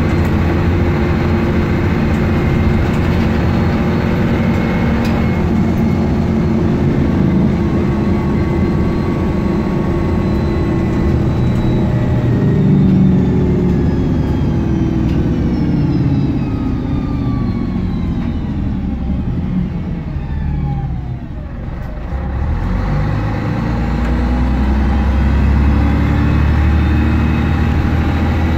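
Scania N113DRB double-decker bus's 11-litre six-cylinder diesel, heard from inside the passenger saloon, running under way. Past the middle its pitch and whine fall away as the bus slows, quietest a little over two-thirds through, then it picks up again with a deep drone.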